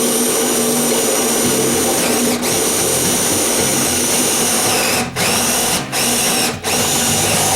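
Electric drill running steadily at speed, boring the holes for a gate latch set in wood. Its whine dips briefly four times.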